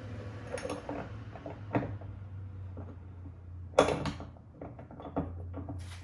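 A series of sharp clicks and knocks from parts and tools being handled during a light-pod install, the loudest about four seconds in, over a steady low hum.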